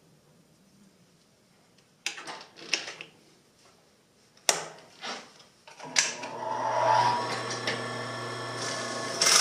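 A few clicks as a bobbin is pushed onto an industrial sewing machine's bobbin winder spindle and the winder is snapped into the wind position. Then a steady mechanical whir with a low hum sets in about six seconds in and jumps louder near the end as the machine runs and drives the winder. The winder has just been cleaned of gummed-up oil and re-oiled after seizing up.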